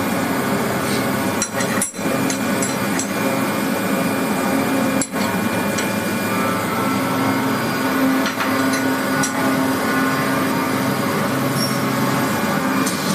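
Machine-shop machinery running steadily: a dense hum holding several steady tones, with scattered light metallic clicks and taps. The sound drops out briefly twice about one and a half to two seconds in, and again about five seconds in.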